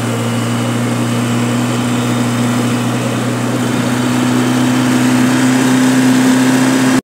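All-terrain vehicle's engine running steadily while under way, its pitch and loudness creeping slightly higher toward the end.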